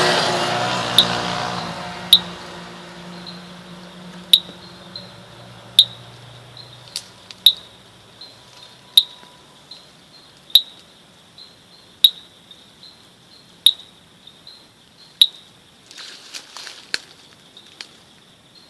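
Sharp, bright clicking calls, one about every one and a half seconds with fainter clicks in between, from an unseen animal in the roadside forest that local people take for a calling snail. A passing vehicle fades away in the first few seconds.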